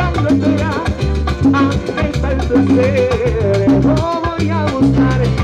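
Tropical dance orchestra playing salsa-style music, with a repeating bass line, busy Latin percussion and a melody line over them.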